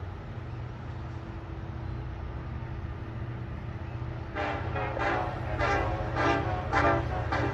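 Ferromex SD70ACe diesel locomotive rumbling steadily, then its air horn sounding a rapid series of about six short blasts starting a little past halfway.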